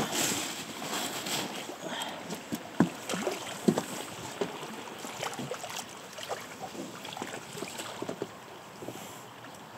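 Scattered light knocks and rustles of gear being handled on a fishing raft, over a steady hiss of wind and river water.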